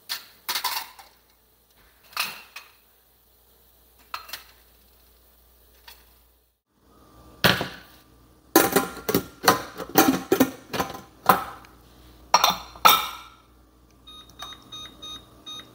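Silver pooja vessels clinking as they are lifted and set down on a silver plate. Then a stainless-steel pressure cooker's lid clatters against the pot as it is fitted and locked on, followed near the end by a run of short beeps from a glass-top stove's touch controls.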